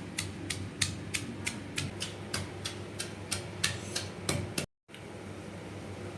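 A pestle pounding roasted ingredients for Maharashtrian thecha: about three sharp knocks a second for some four and a half seconds, then it cuts off abruptly.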